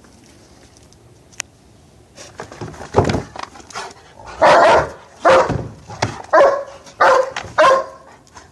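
A dog barking repeatedly, starting about two seconds in and building to about six loud barks over the last five seconds.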